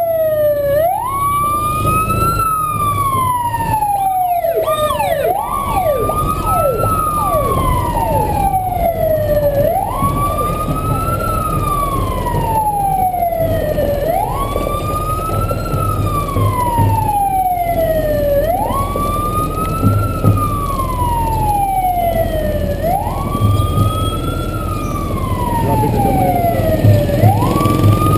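Electronic siren of a traffic patrol truck, wailing in slow cycles: each cycle jumps up in pitch, then falls slowly, repeating about every four and a half seconds. A burst of quick falling tones comes around five seconds in, over steady vehicle rumble.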